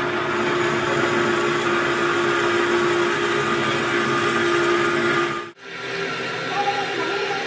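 Horizontal metal-cutting band saw running, a steady motor hum with a steady tone under the mechanical noise. It breaks off for an instant about five and a half seconds in, then carries on.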